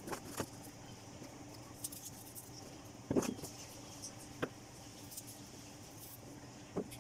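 Sliced onions being tossed and squeezed by hand in a plastic colander: a few brief crisp rustles and clicks, the loudest about three seconds in, over a low steady hum.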